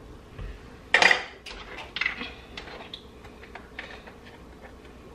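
Kitchen utensils handled on a counter: a sharp clatter about a second in, followed by a few lighter clinks and knocks.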